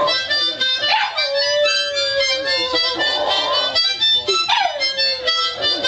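A harmonica playing chords while a boxer puppy howls along. There are two long howls, one about a second in and one after four seconds, and each starts high, slides down and then holds a steady note.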